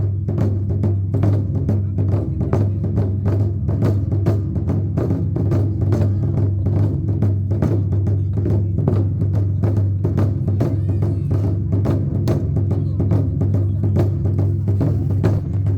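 Japanese taiko drums beaten in a fast, steady run of strikes over a continuous low boom.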